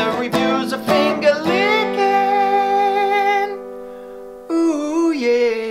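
Music: quick strummed chords on a plucked string instrument settle into a long held chord. A few held notes with a wavering pitch follow near the end.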